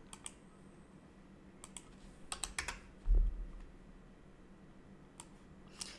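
Computer keyboard typing: scattered keystrokes in short clusters with pauses between, plus one low thump about three seconds in.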